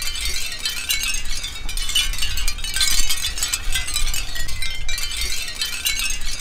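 Capiz shell wind chime, its many thin heart-shaped shells clinking against each other as it sways: a dense, bright, continuous tinkling, with a low rumble underneath.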